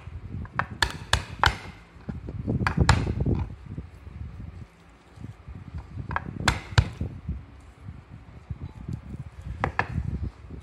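Kitchen knife knocking on a wooden cutting board as garlic is crushed under the flat of the blade with the hand: sharp knocks in short clusters, several in the first second and a half, a few more around three seconds, three around six to seven seconds and one near the end.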